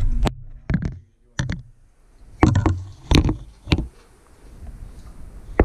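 Irregular knocks and taps of a camera being handled and bumped against a cabinet while it is hooked onto a cabinet knob, in small clusters with a sharp last knock near the end.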